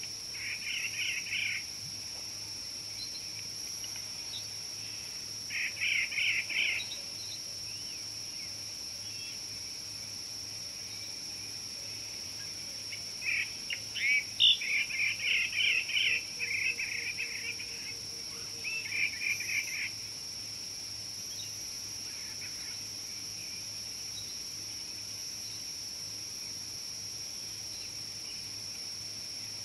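Wild birds calling in four bursts of quick, chirping notes, the longest about halfway through, over a steady high-pitched insect drone.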